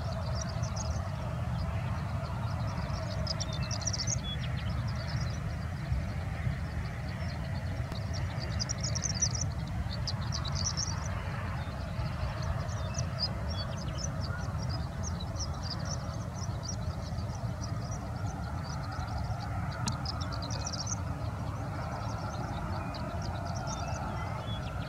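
Horned lark singing: phrases of short, thin, very high notes, scattered at first and coming almost without a break in the second half. A steady low rumble runs underneath.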